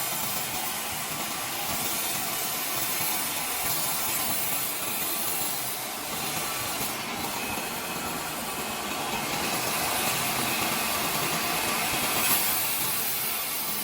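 Sawmill saw cutting lengthwise through a log, a steady hissing rasp with a short sharp spike about twelve seconds in.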